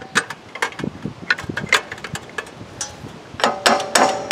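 Hammer blows and prying on the flywheel of a Briggs & Stratton 26 HP twin-cylinder engine, a string of irregular sharp metal knocks, the last few ringing, as the flywheel is worked loose from the crankshaft without a puller.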